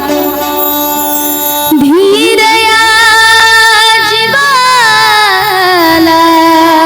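A Bhimgeet, a Marathi devotional song, sung solo with long held, ornamented notes over a steady accompaniment. About two seconds in, a new phrase starts with a slide up to a high held note, which then wavers and falls.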